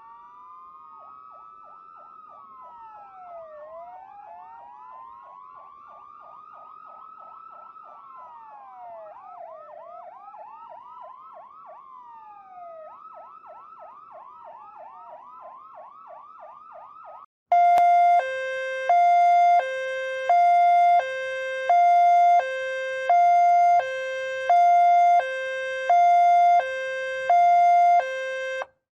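Ambulance sirens. First a slow rising-and-falling wail overlaps with rapid yelp sweeps. About seventeen seconds in, it cuts to a much louder two-tone hi-lo siren, switching between a higher and a lower note about every 0.7 seconds.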